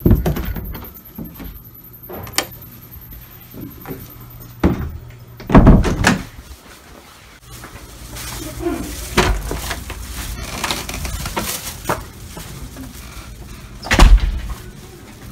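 Doors being opened and shut, with latch clicks and a series of thuds. The loudest thuds come about five and a half seconds in and again near the end.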